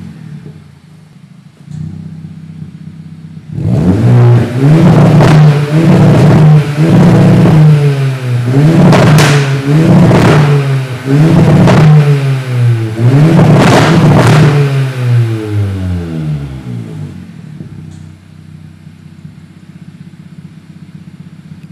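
Hyundai i20N's turbocharged 1.6-litre four-cylinder heard through a 3-inch stainless valved GPF-back exhaust with the valves open. It idles, then is revved about six times in quick succession, each rev climbing and dropping back. It then settles to idle for the last few seconds.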